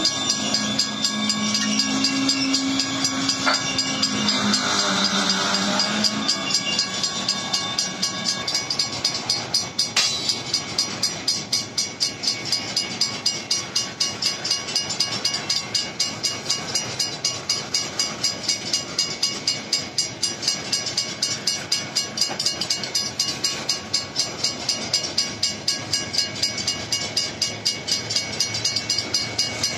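WCH mechanical crossing bells ringing in rapid, even strokes over the rumble and clatter of a freight train of covered hopper cars rolling through the crossing. A low droning tone sounds underneath for the first six seconds or so, and a couple of sharp clanks come through.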